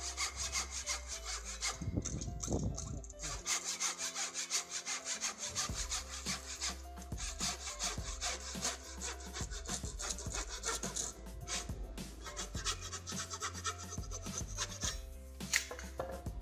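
Japanese handsaw cutting into a softwood block with quick, rhythmic back-and-forth strokes, the teeth rasping through the wood along the marked ink line.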